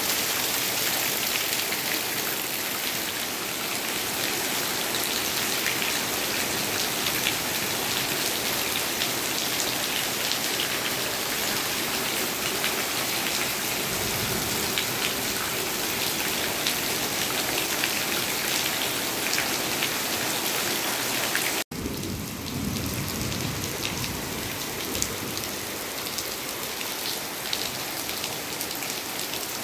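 Heavy rain pouring steadily, drops pattering densely on surfaces. The sound cuts out for an instant about two-thirds of the way through, then the rain carries on.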